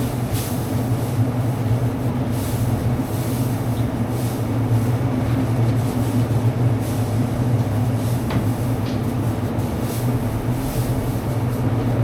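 Steady low machine rumble with a constant hum, without a break or change.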